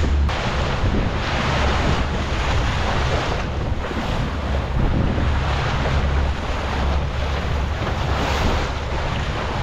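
Wind buffeting the microphone and water rushing and splashing past the hull of a small open boat under way, with the low steady drone of its outboard motor underneath.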